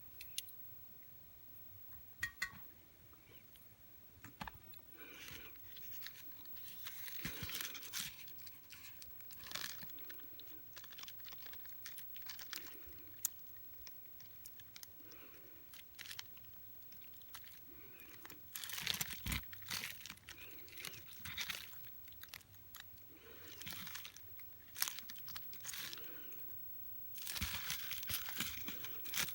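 Hands working on small parts and tools at a bench: a few sharp clicks, then irregular scraping and rustling strokes, the longest near the end.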